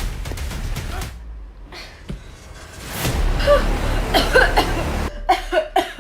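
A person's voice making short wordless sounds in two clusters, about three seconds in and again about five seconds in, over a low rumbling noise.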